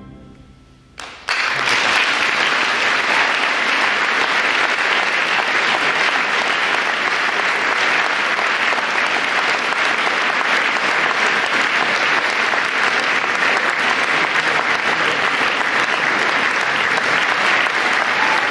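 The last of the wind band's final chord dies away into a short hush, then audience applause breaks out suddenly about a second in and goes on steadily.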